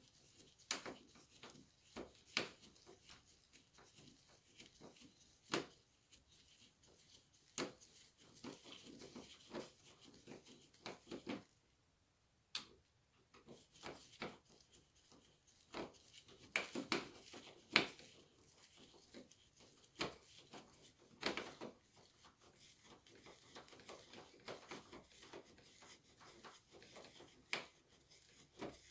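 Doorknob hardware being handled and fitted into a door: irregular sharp clicks and knocks with short bursts of light rattling.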